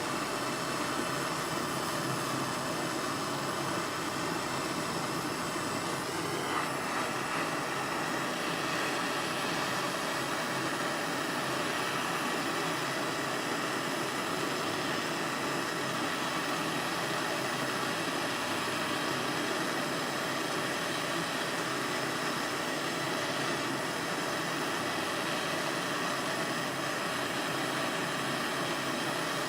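Large gas soldering torch burning steadily, a constant rushing flame noise, as it heats a big silver-soldered joint.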